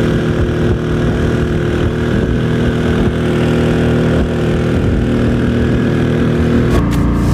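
Motorised country boat's engine running steadily while under way. Music comes in near the end.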